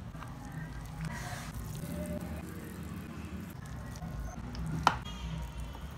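Wooden spoon stirring and pressing thick, sticky cooked black glutinous rice, soft wet squishing, with one sharp knock about five seconds in.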